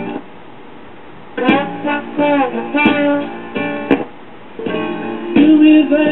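Music from a 45 RPM vinyl single playing on a Califone 1010AV classroom record player, heard through its small built-in 4-inch speakers. The music drops to a quiet gap just after the start and comes back in about a second and a half in.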